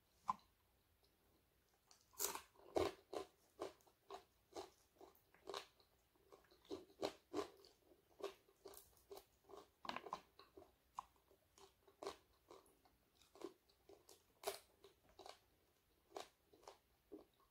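Close-mic'd crunching and chewing of crispy fried dried fish: a long run of short crisp crunches, about two or three a second, starting about two seconds in.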